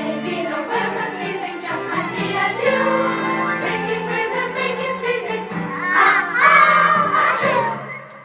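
A group of young children singing a song together over backing music. The singing grows louder and higher about six seconds in, then fades near the end.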